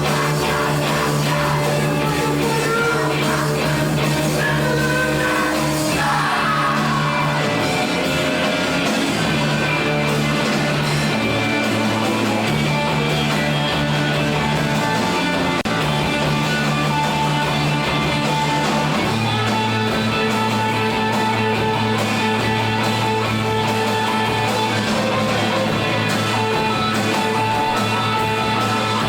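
Rock band playing: sustained guitar chords over bass, with shouted singing in the first several seconds.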